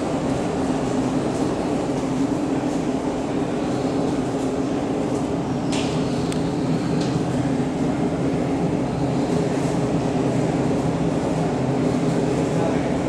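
MTR M-Train electric multiple unit running through an underground station without stopping: a steady rumble heard behind the platform screen doors, with two sharp clicks about six and seven seconds in.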